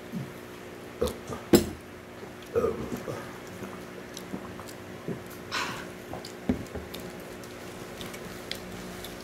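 Swallowing sounds of someone drinking orange juice from a glass held close to the microphone, with sharp clicks and small knocks of the glass, the loudest about a second and a half in. A short breathy sound comes a little past halfway.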